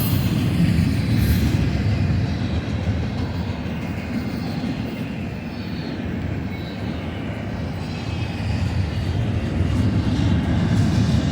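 Spine cars of a BNSF domestic intermodal freight train rolling past: a steady rumble of steel wheels on rail that eases slightly midway and swells again near the end.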